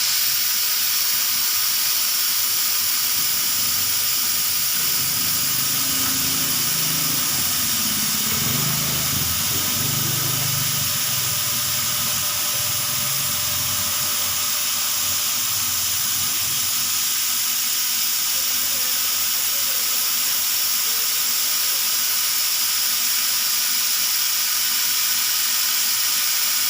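CNC laser cutter running while it cuts 3 mm melamine plywood: a steady, loud hiss throughout. From about 5 to 16 seconds a low hum changes pitch in steps as the machine's motors move the head.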